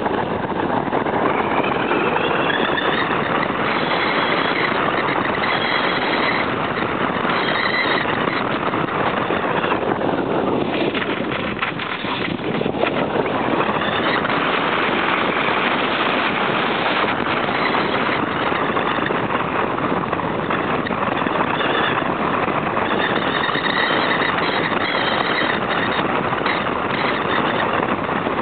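Steady rush of airflow over an onboard camera on a radio-controlled F3J sailplane in gliding flight, with faint whistling tones that rise and fall. It dips for a moment about halfway through.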